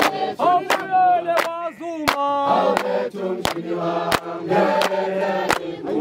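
Several voices singing a song in chorus over a steady beat of sharp percussive hits about every two-thirds of a second.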